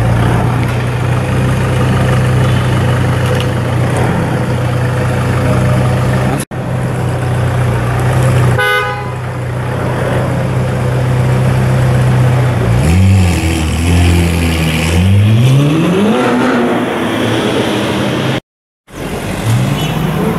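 Ferrari 458 Italia's 4.5-litre V8 through a decatted IPE (Innotech) exhaust, idling steadily, then blipped several times in the last third, the revs rising and falling back with each blip. A short high beep about nine seconds in.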